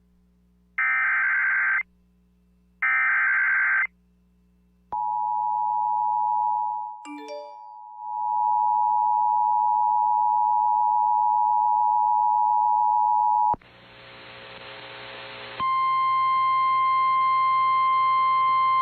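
Emergency Alert System tones. Two one-second bursts of screechy SAME header data tones come first. Then comes the steady two-tone attention signal, which briefly drops out with a few chirps. After a short burst of static it gives way to a single steady alert tone that runs on.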